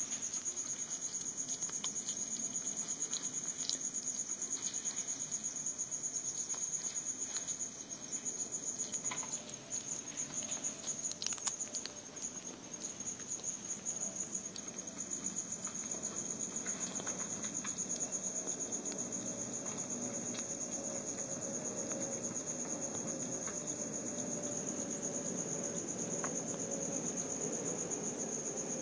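A continuous high-pitched insect trill, with faint crunching clicks from a slow loris chewing a grasshopper in the first half.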